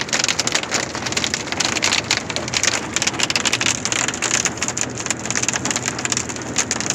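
Hail and heavy rain pelting a pickup truck's roof and windshield, heard from inside the cab as a dense, continuous stream of sharp taps.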